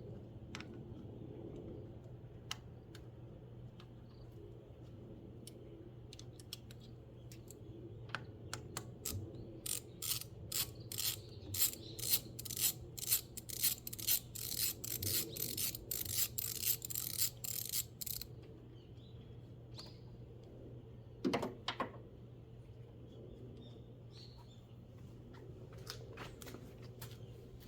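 Hand socket ratchet clicking in a run of quick strokes for several seconds, then a single louder clack of a tool being set down or knocked, over a steady low hum.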